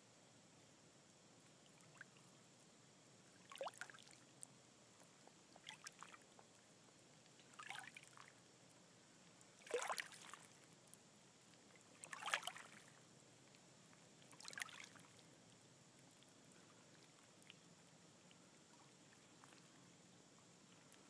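Shallow lake water lapping and splashing faintly: about six short slaps of water, roughly every two to two and a half seconds, with the loudest near the middle.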